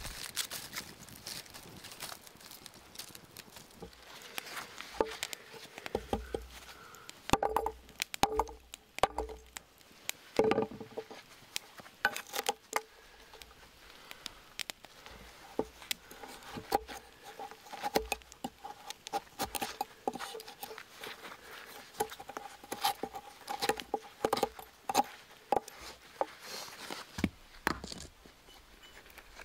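A small kindling fire crackling and popping, with twigs and wood shavings being handled and snapped in an irregular run of clicks.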